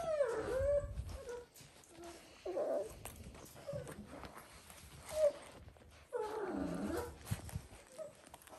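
Dalmatian puppies vocalising: a few separate whines and grumbling growls whose pitch dips and then rises, with the longest one about six seconds in.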